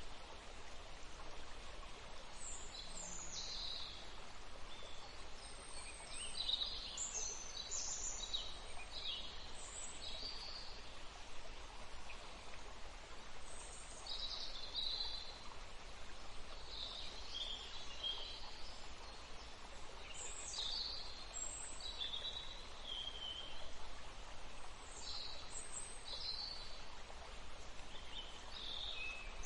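Wild birds singing, with many short, high chirps and trills from several birds following one another throughout, over a steady background hiss.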